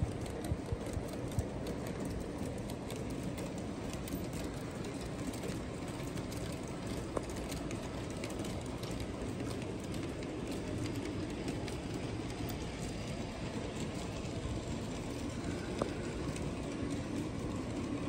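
G-scale model freight train running on its track: a steady rolling rumble of wheels, with a few sharp clicks in the first second and a half and single clicks later on.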